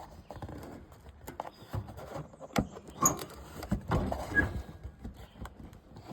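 Irregular clicks, knocks and light rattles of a plastic body panel being handled and pressed into place on a UTV's rear, with a couple of short faint squeaks.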